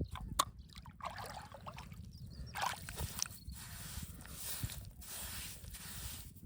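Water sloshing and splashing in a series of swishes, with a few small clicks or knocks early on.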